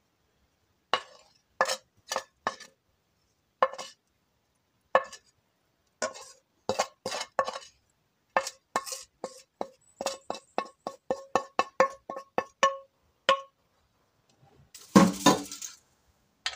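A metal spoon taps and scrapes against a frying pan, with sharp ringing clinks. They come scattered at first, then in a quick run of about five taps a second. A louder clatter follows near the end.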